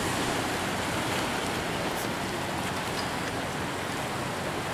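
Ocean surf washing over black lava rocks along the shore, a steady rush of water noise.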